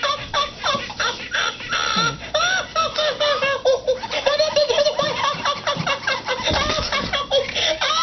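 Tickle Me Elmo plush toy laughing in its high, squeaky recorded voice, in quick rising and falling peals of giggles without a break.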